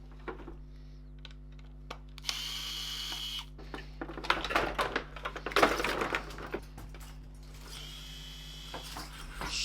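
A small power tool whirs for about a second, followed by a few seconds of clattering and knocking as metal and plastic parts of a dehumidifier are handled and pulled loose, then a second, weaker whir near the end.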